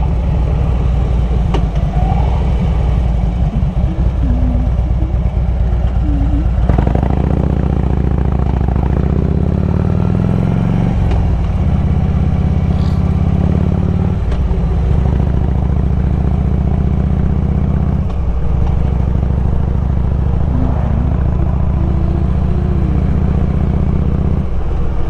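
Harley-Davidson Road King's V-twin engine running under way at road speed. The note climbs for a few seconds, then breaks off and drops several times.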